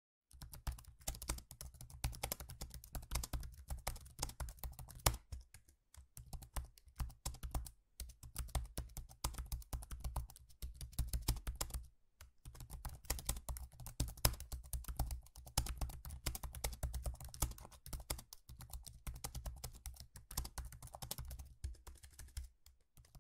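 Typing on a computer keyboard: fast runs of keystrokes broken by a few short pauses.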